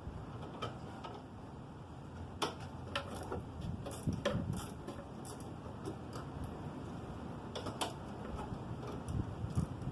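Scattered clicks and light knocks of hand tools and metal parts being handled while a motorcycle is worked on, irregular rather than a steady rhythm.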